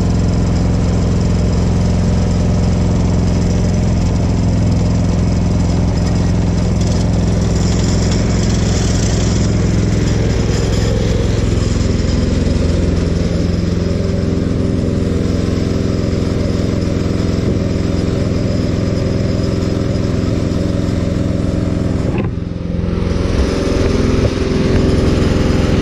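Portable sawmill's gas engine running steadily under load while the blade cuts through a glued-up maple butcher block. About 22 seconds in the cutting noise drops away briefly, and the engine runs on a little louder.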